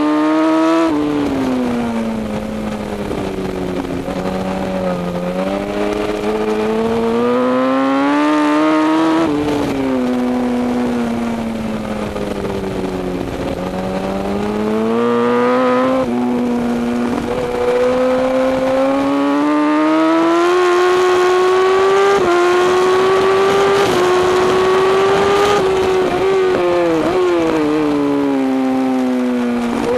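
Sport motorcycle engine at high revs, recorded on board with wind rush: the pitch climbs steadily for several seconds at a time and falls away, with a few sudden drops.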